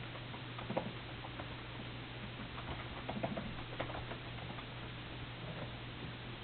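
Scattered soft clicks and smacks of someone chewing a cheeseburger, over a steady low hum and hiss.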